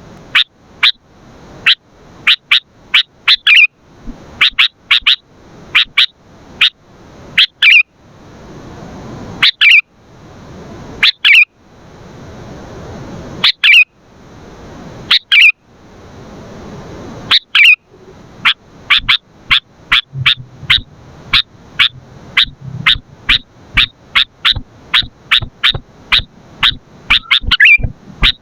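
Sooty-headed bulbul (kutilang) calling over and over: loud, short, sharp notes, sometimes several a second in quick runs, sometimes single with short pauses between.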